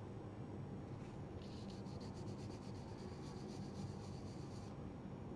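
Very fine 2000-grit sandpaper rubbed in quick, light back-and-forth strokes over the dried varnish coat of a painted icon board, smoothing out a small lump. It is a rapid, even scratching that starts about a second and a half in and stops near the end.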